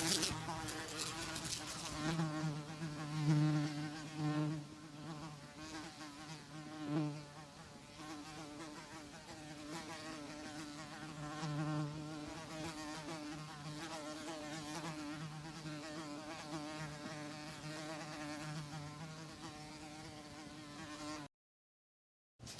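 Housefly buzzing in flight, a steady drone that wavers in pitch and swells louder several times as it passes close. It cuts off completely about a second before the end, then starts again.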